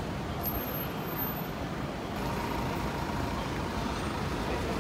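Busy city street ambience: a steady rumble of road traffic, with a faint steady tone joining about two seconds in.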